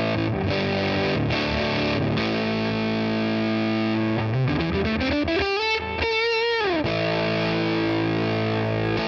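Electric guitar played through a BJFE Bone Bender fuzz pedal, a Tone Bender clone, giving a thick fuzz tone. It starts with held chords. About four seconds in, a single note slides up in pitch, is held with vibrato, and then drops back into sustained chords.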